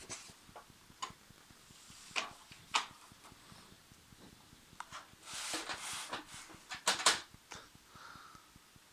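Plastic parts of a laser printer being handled and fitted back in: scattered clicks and knocks, with a stretch of scraping and rustling about halfway through and a couple of sharper clicks after it.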